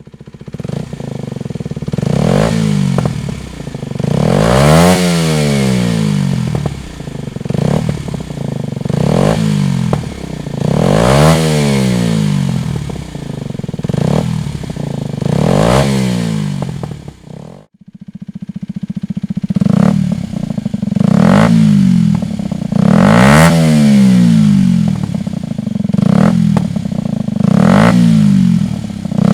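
Kawasaki Ninja 125's single-cylinder four-stroke engine revved repeatedly through a Dominator aftermarket exhaust, each throttle blip rising and falling in pitch about every two seconds. The sound cuts out briefly about two-thirds of the way through, then the blips resume.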